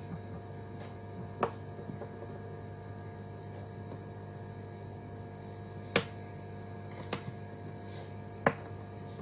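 Steady low electrical hum from a switching power supply with its cooling fan, with a handful of sharp plastic clicks as the PoE backup box is switched on and a DC power plug is pushed into its input; the two loudest clicks come about six and eight and a half seconds in.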